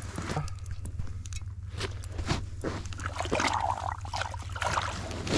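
Scattered crunching and scraping in snow as a person moves and kneels at an ice-fishing hole, over a steady low rumble.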